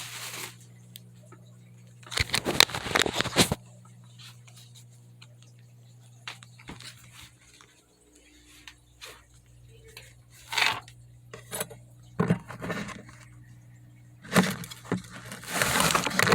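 Packaging crinkling and rustling as a parcel is unpacked by hand, in short bursts with small clicks and knocks between them, over a faint low hum that stops partway through.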